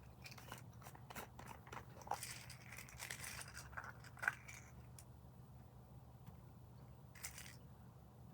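Handling of 3D printed plastic dragons: a run of small clicks and rustles, the sharpest click a little after four seconds in and a short rustle near the end, over a low steady hum.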